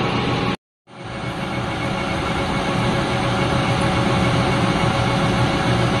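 1973 Harrison metal lathe running with its chuck spinning: a loud, steady machine whir with a few steady tones through it. The sound cuts out for a moment just after the start, then returns and holds steady.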